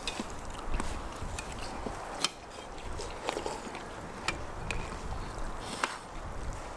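Metal spoons clinking against enamel soup bowls as several people eat, light scattered clinks every second or so, the sharpest one about two seconds in, over a faint steady hiss.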